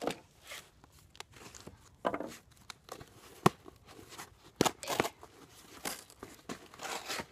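A cardboard shipping box being opened by hand: irregular crinkling and tearing of cardboard and packing tape, broken by sharp clicks, the loudest about three and a half seconds in.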